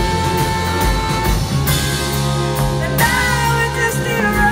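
Live rock band playing: electric guitar and drums, with a woman singing lead.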